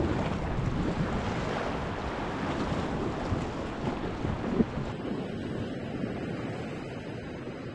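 Sea waves washing and lapping, with wind buffeting the microphone. About five seconds in, the sound turns duller and a little quieter.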